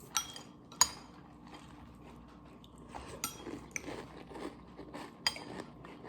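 Metal spoon clinking against a cereal bowl about five times, the loudest clink about a second in, with soft crunching of dry cereal between the clinks.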